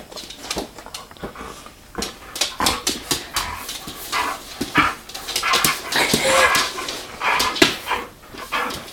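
A large dog making short whining and barking noises, mixed with many sharp clicks and scuffles.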